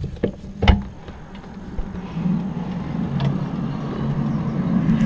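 A few clicks and knocks as a window is opened, then a steady low droning hum swells in from outside about two seconds in. It is the unexplained noise the person says they have been hearing outside.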